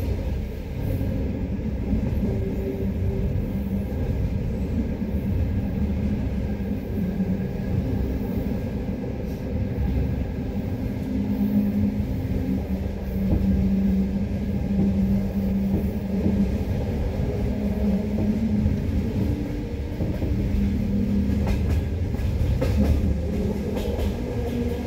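Passenger train carriage running, heard through an open window vent: a steady rumble with a low, organ-like singing tone that comes and goes, strongest in the middle of the stretch.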